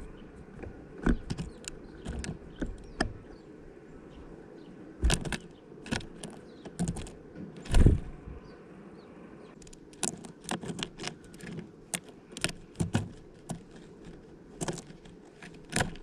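Irregular taps and knocks of great tits landing on and pecking at a plastic bottle feeder, with seeds and nuts shifting. The loudest knock is about halfway through, and a quick run of lighter taps comes in the second half.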